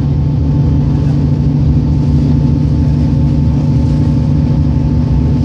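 Passenger train running, heard from inside the carriage: a steady, loud low rumble with a constant hum.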